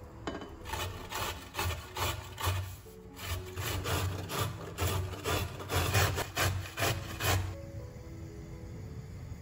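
A carrot being grated by hand on a metal box grater: a quick run of repeated scraping strokes, two to three a second, that stop about seven and a half seconds in.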